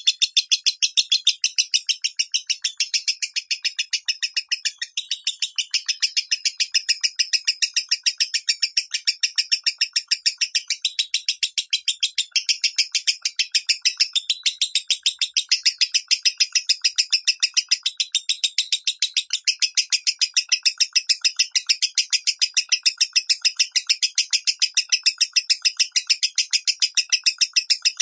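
Lovebird singing in its 'minor' voice: an unbroken run of short, sharp, high chirps at about four a second.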